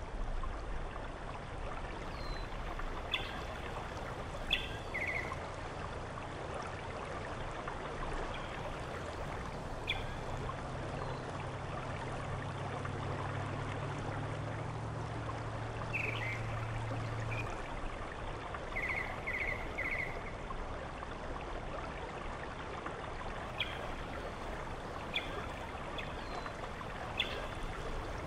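Steady rushing of running water, with short bird chirps scattered through it. A low hum sounds from about ten to seventeen seconds in.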